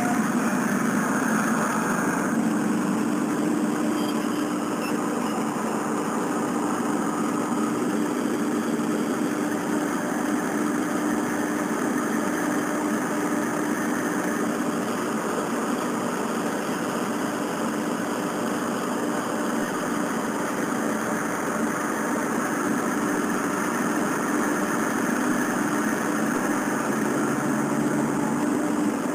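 Diesel railcar engine idling steadily while the train stands at the station, an even, unchanging hum.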